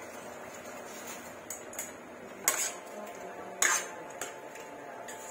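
Utensils knocking and scraping against a steel wok as vegetables are tipped in and stir-fried, over a steady low hiss. There are two louder clanks in the middle.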